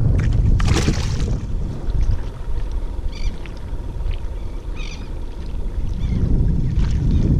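Wind buffeting the microphone on a kayak on open water: a steady low rumble, with a brief hiss about a second in and a few faint short high chirps.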